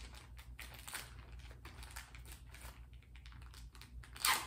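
Packaging being handled while unpacking socks: a run of light clicks and crinkling, with a louder rustle about four seconds in.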